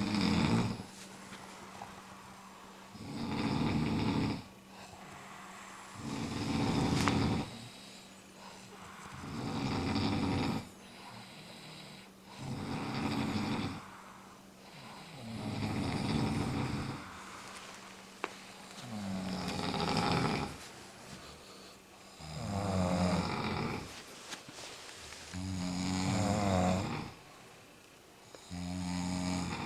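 A person snoring loudly and deliberately in a snoring contest: about nine long snores, one every three seconds or so. The later snores take on a more pitched, rattling tone.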